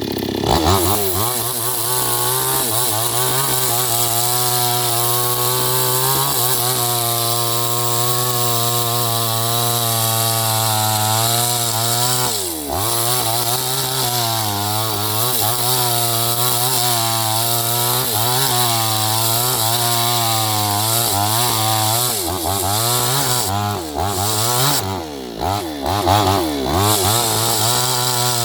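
New West 628 two-stroke chainsaw running at high revs while cutting wood, its pitch wavering under load. The revs dip sharply about halfway through, and near the end they drop and rise several times.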